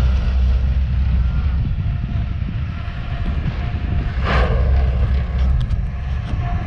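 Low, rough rumble of wind on the microphone over a distant tractor running a bale processor that is shredding hay, with a faint steady whine from about two seconds in. A short rushing burst comes a little past four seconds in.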